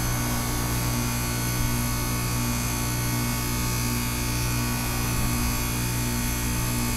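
Goodman heat pump outdoor unit running in defrost: a steady low hum with a fainter tone above it that cuts in and out.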